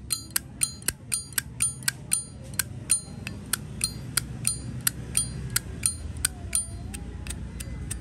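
Zippo lighter lid being flicked open and snapped shut over and over: a quick run of sharp metallic clicks, each with a high ringing ping, the bell-like ring that collectors prize in a Zippo. The clicks come about four a second, slow down later, and stop shortly before the end.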